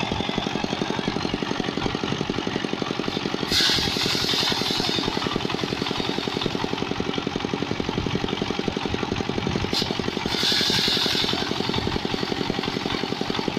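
Small single-cylinder diesel engine running a motorized rice thresher with a steady, fast pulse. About four seconds in and again about ten seconds in, a louder hissing rush rises over it as bundles of rice straw are held into the spinning threshing drum and the grain is beaten off.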